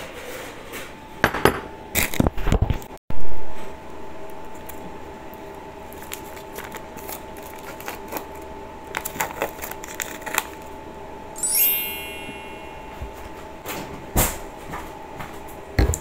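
Food-preparation handling sounds: scattered clicks and taps of a bowl, utensils and a sauce sachet being torn open and squeezed, over a steady hum. A loud dull thump about three seconds in is the loudest thing, and a short high chirping sound comes a little past the middle.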